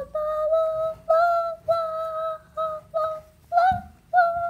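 A child singing a wordless run of about nine short held notes at a high, nearly level pitch, each lasting under half a second with brief gaps between them.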